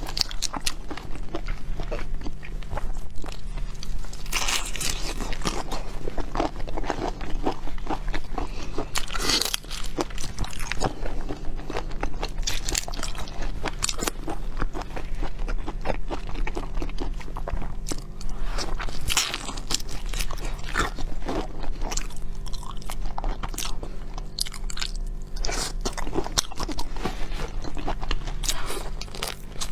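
Close-miked eating of shell-on seafood: irregular biting and chewing with frequent crisp crunches, over a steady low electrical hum.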